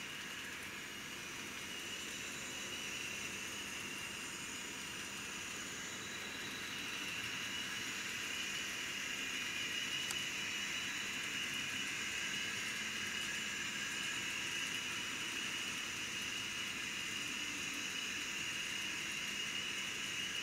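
N scale model train running steadily: the ESU LokSound DCC sound decoder in Kato EMD SDP40F diesel locomotives plays diesel engine sound through a tiny speaker, over the rolling of the passenger cars on the track. It grows a little louder about seven seconds in.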